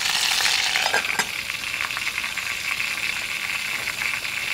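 Chicken thighs sizzling steadily as they sear in olive oil in a pot on a canister gas camp stove, with a light clink of the pot lid being set on about a second in.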